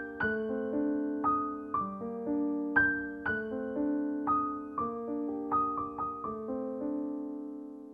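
Background music: a gentle, slow piano melody with struck notes, a few each second, ringing out over held chords.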